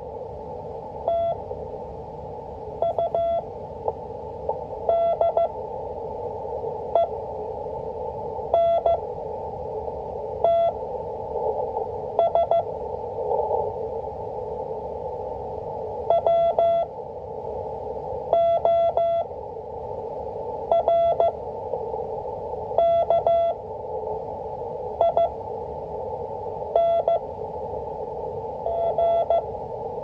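Morse code on a single steady tone from an Icom IC-718 HF transceiver receiving W1AW's 5 words-per-minute code practice. Each character is keyed as a quick group of dots and dashes, with long gaps of about two seconds between characters. Steady hiss of band noise, narrowed by the receiver's CW filter, runs underneath.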